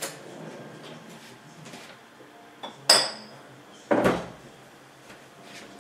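A sharp clink with a brief ringing tone about three seconds in, then a heavier knock a second later, over faint room noise.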